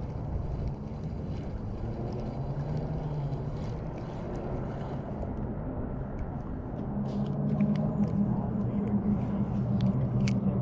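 A boat's motor running steadily with a low hum, growing louder about seven seconds in, with scattered light ticks.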